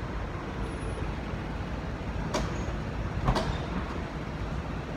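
Steady outdoor street noise with a low traffic rumble, and two short clicks about a second apart in the middle.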